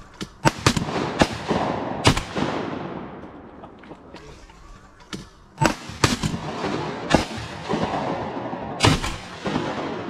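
Shotgun volley from several waterfowl hunters: about nine shots in two bursts, four in the first two seconds and five more from about five and a half seconds on, each shot echoing.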